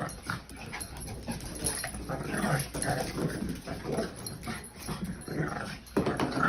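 Two pet dogs making short, irregular vocal sounds as they chase each other in play, busier from about two seconds in.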